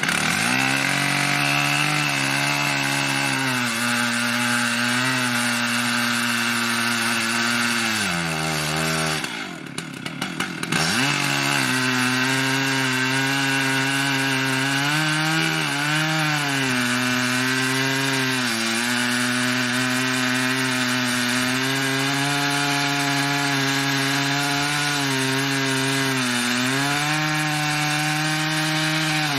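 Stihl MS880 two-stroke chainsaw on an Alaskan chainsaw mill, cutting a red oak log under load, its engine pitch wavering as it works through the cut. About eight seconds in the revs fall away and it runs quieter for a couple of seconds, then it revs back up into the cut.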